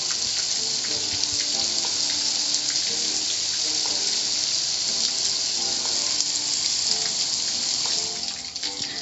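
Car wash water spray hissing steadily against the car, with faint music underneath; the spray drops off near the end.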